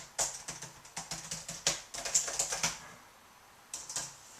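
Typing on a computer keyboard: a quick run of keystrokes for about three seconds, then a short pause and a few more keystrokes near the end.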